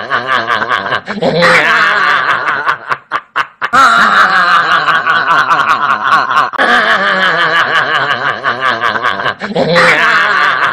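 Men laughing loudly in rapid, rhythmic ha-ha pulses, in short clips cut one after another, with a brief break about three and a half seconds in.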